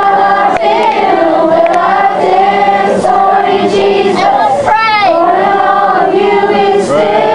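Group of children singing together, with a woman's voice among them. A single high voice briefly swoops up and down about five seconds in.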